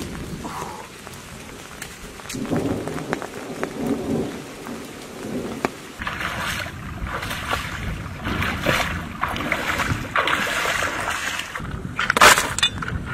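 Running water of a rocky creek, with bare feet stepping and rustling over dry leaves and pebbles; a sharper crunch of stones near the end.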